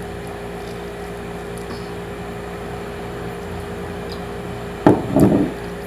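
Steady room hum with a constant low tone, like an electric fan or appliance running. About five seconds in, a brief louder sound comes twice in quick succession.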